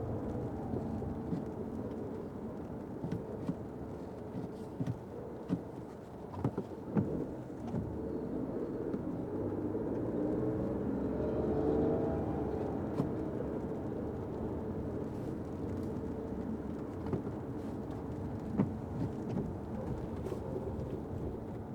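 Fiat 500X driving in the rain, heard muffled from inside: steady road and engine noise with scattered sharp taps of rain on the car. The noise swells for a few seconds around the middle.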